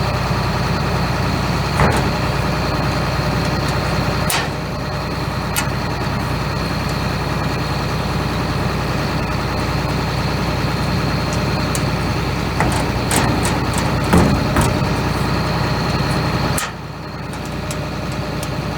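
John Deere 9500 combine's diesel engine running steadily, with scattered metal clicks and knocks as grain tank extension panels and lynch pins are handled. The engine sound drops in level near the end.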